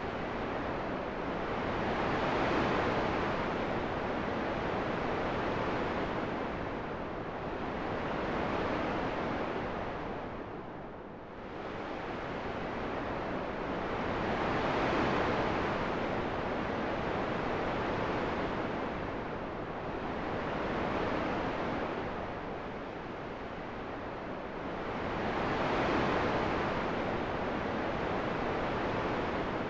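Wind blowing in slow gusts: a steady rush that swells and fades every five or six seconds, dropping lowest about eleven seconds in.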